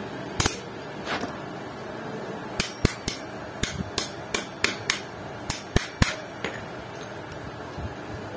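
Sharp metallic clicks and taps, about fifteen in irregular quick succession, some ringing briefly, from pliers and the steel parts of a JVT clutch shoe assembly for a Honda Click 125i being worked to seat its small retaining circlips. The clicking stops about two seconds before the end.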